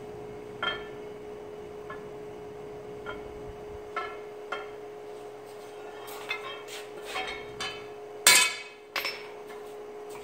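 A hot square steel bar clinks against the anvil a few scattered times as it is handled, then gives two loud metallic clangs close together about eight seconds in. A steady hum from the running forge lies beneath.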